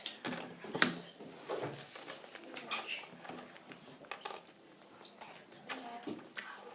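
Small plastic Kinder Surprise toy pieces clicking and tapping together as they are handled and fitted, in irregular light knocks, the sharpest about a second in.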